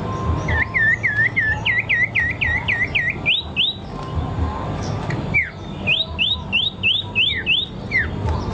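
A songbird singing rapid runs of repeated rising whistled notes, about three a second. The first run lasts about three seconds and the second, shorter run comes a little past the middle, with a few falling notes mixed in, over a steady low background noise.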